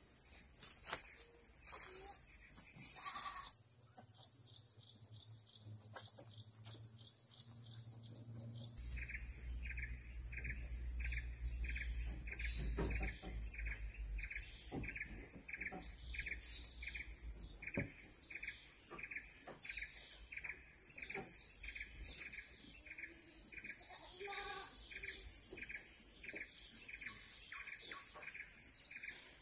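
Insects in the forest keep up a steady high-pitched drone. From about nine seconds in, a short chirp joins it, repeating evenly a little more than once a second. Between about three and a half and nine seconds the drone changes and thins out.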